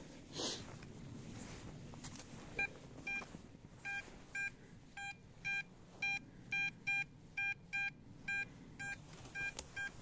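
XP Deus metal detector giving repeated short target beeps, about two a second and slightly uneven, each the same pitched tone, starting a few seconds in: the detector is signalling a buried metal target as the coil sweeps back and forth over it.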